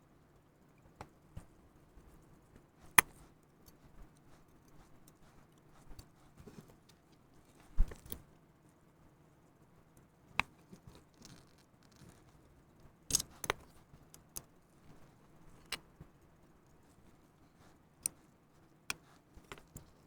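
Small metal tools, watchmaker's screwdriver and tweezers, clicking and tapping on a pocket watch movement as its screws and small parts are taken out and set down. Sparse, irregular clicks, the loudest about 3 and 8 seconds in, with a quick cluster around 13 seconds.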